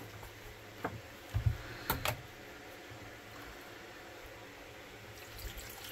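Quiet room tone with a low steady hum, broken by a few light clicks and knocks in the first two seconds.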